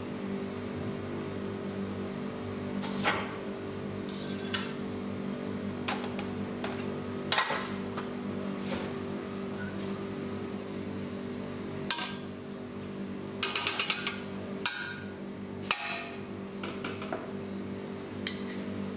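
Steady hum of kitchen equipment, with scattered clinks and knocks of containers and utensils being handled and set down on the counter, and a quick rattle of several clicks about two thirds of the way through.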